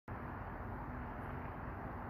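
Steady low rumble of distant city traffic, with a faint steady hum.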